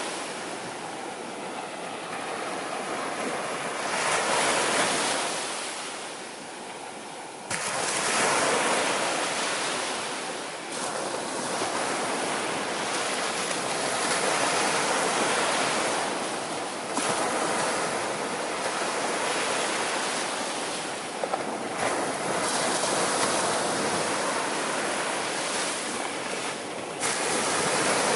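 Sea surf: waves breaking and washing in, swelling and easing every few seconds.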